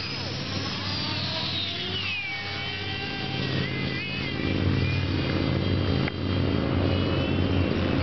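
450-size radio-controlled helicopter flying: the high whine of its motor and rotor glides down in pitch about two seconds in, then wavers up and down as it climbs away, over a steady low hum.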